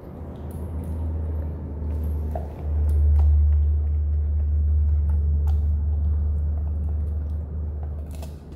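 A loud, steady low rumble that grows louder about two and a half seconds in, with a few faint clicks over it.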